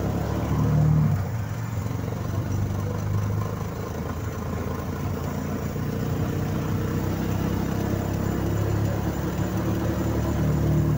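An engine running steadily, a low hum that swells briefly about a second in.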